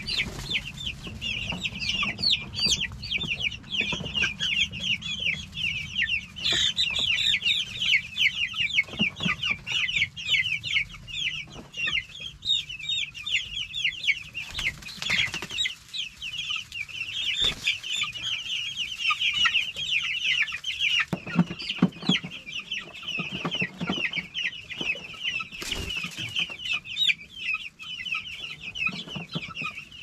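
A flock of young chicks peeping without pause, many short high peeps overlapping, with a few scattered knocks.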